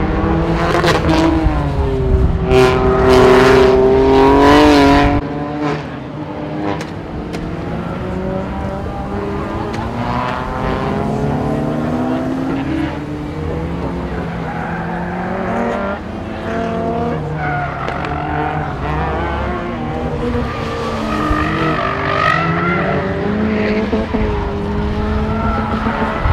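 Sports car engines revving and accelerating away one after another, the loudest a run in the first few seconds whose pitch rises and falls with the revs. A Mercedes-AMG GT's V8 pulls away around the middle.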